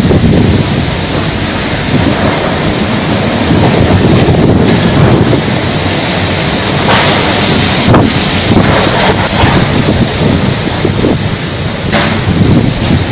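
Storm wind blowing hard across the microphone: a loud, dense, steady rush, with a few brief sharper bursts scattered through it.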